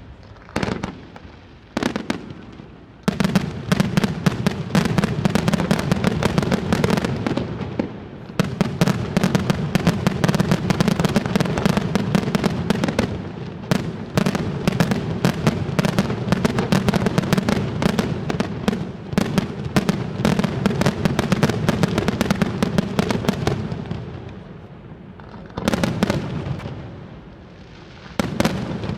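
Aerial fireworks display: a few separate bangs, then a dense, rapid barrage of bangs and crackles from about three seconds in that eases off a few seconds before the end, followed by a couple of isolated bursts.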